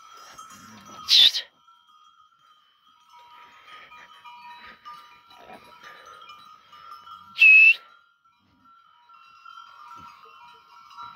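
Flock of sheep and goats on the move, many neck bells ringing steadily together. Two loud, short bleats, about a second in and again about seven seconds later.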